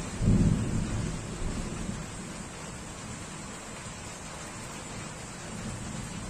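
Steady rain falling, with a roll of thunder in the first couple of seconds that peaks and fades away, leaving the rain alone.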